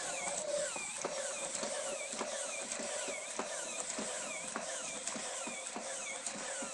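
Motorized walking toy dragon running, its gears and legs giving a regular squeak and click nearly twice a second over a steady whir.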